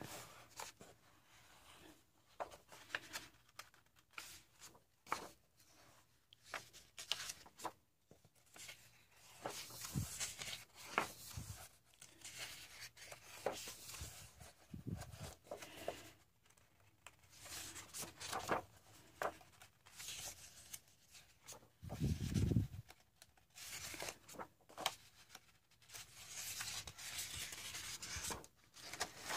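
Paper pages of a thick hardcover coloring book being turned by hand: faint, scattered rustles and swishes of paper, with a dull thump about three-quarters of the way through.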